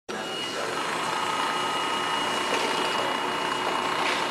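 Meat and squid strip-cutting machine running, its conveyor carrying raw chicken thighs through the blades as they are sliced into strips. The sound is a steady mechanical running noise with an even high whine throughout.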